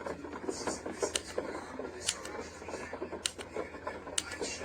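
White noise sound machine playing one of its built-in soothing sounds through its small speaker: an irregular crackling with sharper clicks about once a second.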